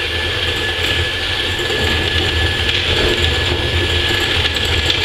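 Electric hand mixer running steadily, its beaters whisking eggs and sugar in a glass bowl, with a constant high motor whine over a low hum.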